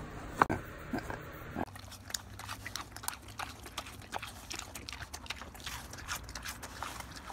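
Pig chewing an apple: quick crunching and smacking clicks, many a second, from about a second and a half in. Before that, a few sharper isolated clicks.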